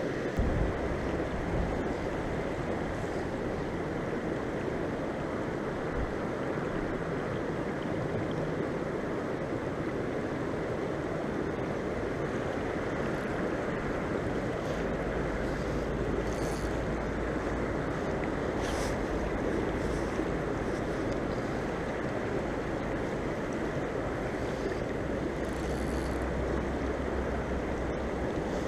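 River water rushing steadily over rocks, with occasional low rumbles of wind on the microphone.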